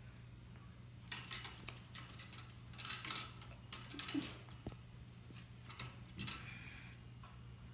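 Playing cards and poker chips being handled at a wooden table: short clicks and rustles in a few separate bursts, about a second in, around three and four seconds, and again near six seconds, over a low steady hum.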